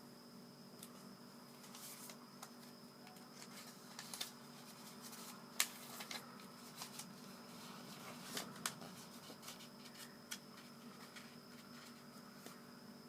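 Origami paper being folded and creased by hand: faint rustling with scattered sharp crinkles, the sharpest a little before halfway, over a steady low hum.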